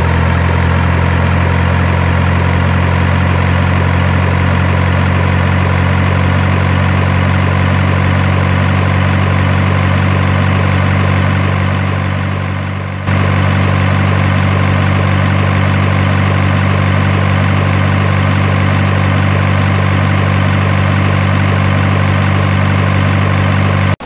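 Truck engine idling steadily with a deep, even hum, a recorded engine sound laid over the picture. It dips a little and restarts abruptly about halfway through, where the recording is spliced.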